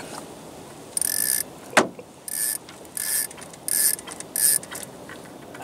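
Fishing reel being cranked in about five short spurts, each a brief whirring buzz, as a hooked pejerrey is reeled in. A single sharp click a little under two seconds in.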